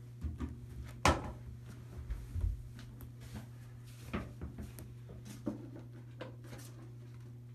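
A person moving about a small bathroom, sitting down and handling a book: a sharp knock about a second in, then scattered softer bumps and clicks, over a steady low hum.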